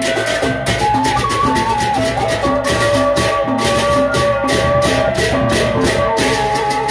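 Sasak gendang beleq gamelan ensemble playing. Rapid, continuous cymbal clashes sound over big drum strokes and ringing pitched gong tones that step from note to note.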